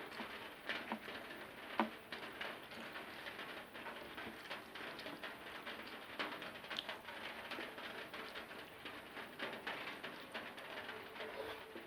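Close-miked eating: a steady run of irregular wet clicks and smacks from chewing a mouthful of rice and egg curry.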